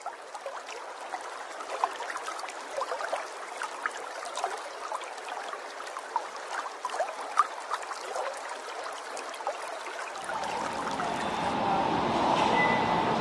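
Water trickling and bubbling, with many small pops and drips. About ten seconds in it gives way abruptly to the steady, fuller hum of a large indoor hall.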